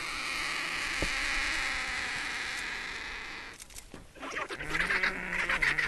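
A group of Indian vultures feeding on a carcass and squabbling. A steady hissing rush comes first. From about three and a half seconds in there are clicks and harsh, pitched calls as the birds get aggressive with each other.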